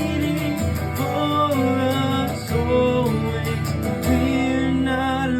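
Worship song: acoustic guitar strumming steadily under long, held sung notes that slide between pitches.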